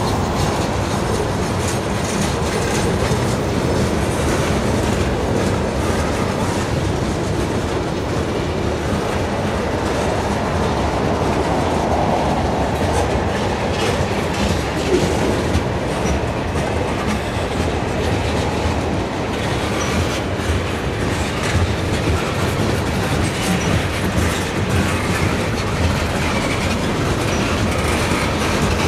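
Freight train rolling past fast and close: a steady rumble of steel wheels on rail, with a constant rapid clatter as the boxcars and tank cars run over the track.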